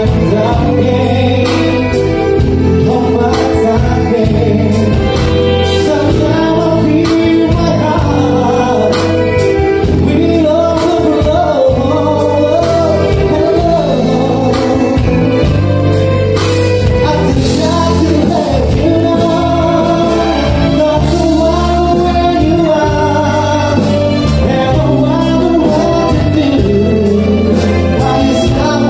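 A live band playing a song with a sung lead vocal over a steady beat.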